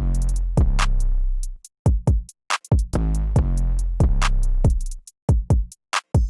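Electronic intro music with drum-machine beats and deep bass notes, stopping and starting with short breaks.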